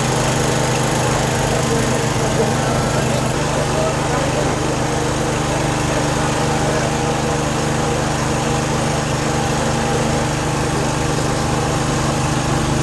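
Small engine running steadily at a constant speed, a continuous even hum.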